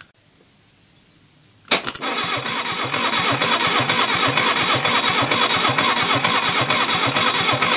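Reliant Fox's 848 cc four-cylinder engine, out of the car, being cranked on its starter motor wired straight to the battery, turning over steadily without firing because the ignition is not connected. It cuts in with a sharp click a little under two seconds in. The cranking is to prime the oil system and bring up oil pressure.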